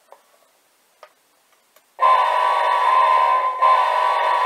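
A few faint clicks, then about two seconds in the electronic diesel horn of a Williams O-gauge F-3 model locomotive starts blowing loud and steady, with a brief break before it sounds again.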